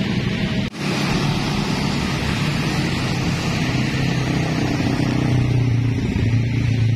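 Road traffic: cars and motorcycles passing in a steady stream of engine and tyre noise, with a deeper engine note swelling near the end.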